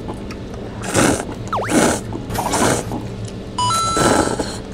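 Ramen noodles and broth being slurped loudly, about four slurps. Near the end a short electronic chime steps up in pitch.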